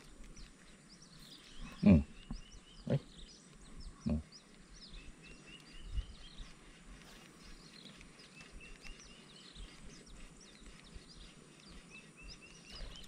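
Birds calling in the surrounding wetland: series of short high chirping notes, repeated over and over. A few dull knocks stand out in the first few seconds, the loudest about two seconds in.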